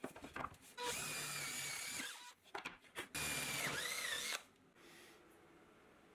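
Cordless drill boring into a plywood disc in two runs of about a second each; in the second the motor's whine dips as the bit bites into the wood, then picks up again. Just before, a short scratchy brushing as sawdust is swept off the bench.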